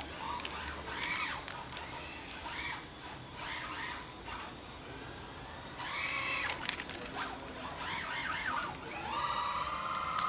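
Traxxas Slash Mudboss RC car's electric motor whining in short bursts as the throttle is blipped on and off, each burst rising and falling in pitch. About nine seconds in it settles into a steady whine that climbs slowly.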